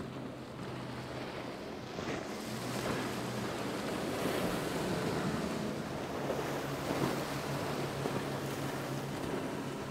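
Outboard motors running at speed on passing center-console boats: a steady low engine hum, with the rush of spray, wake and wind on the microphone swelling louder in the middle.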